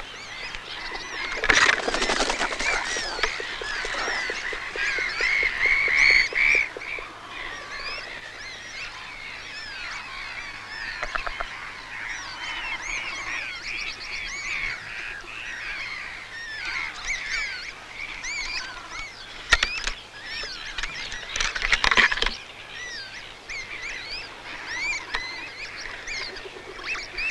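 A chorus of many birds calling at once: a dense run of short, overlapping chirping and honking calls, louder about two seconds in and again around twenty seconds in.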